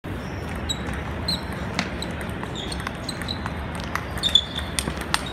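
Table tennis rally: the celluloid ball clicking sharply and irregularly off paddles and the table, with further ball clicks from neighbouring tables and a few short high squeaks, over a steady low hall hum.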